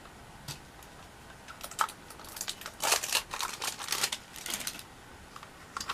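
Small plastic toy cat carriers and their packaging being handled: a run of light plastic clicks and rustling, starting about a second and a half in and dying away about a second before the end.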